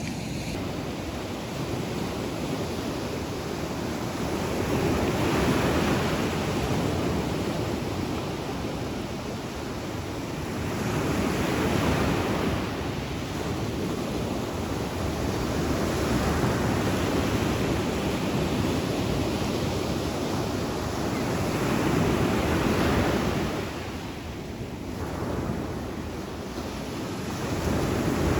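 Ocean surf breaking on the shore, swelling and easing about every five to six seconds.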